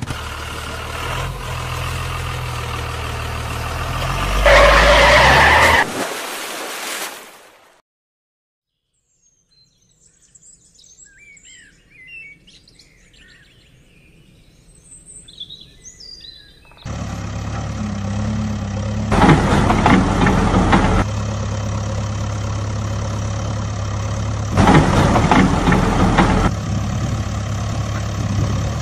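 A truck engine running steadily, with a louder, revving stretch a few seconds in, then fading out. Small birds chirp faintly in the gap. The engine starts again abruptly about halfway through, revving up twice.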